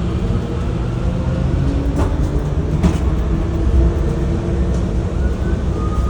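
Airport people-mover train running, heard from inside the car: a steady low rumble with a faint motor whine, and two sharp clacks about two and three seconds in.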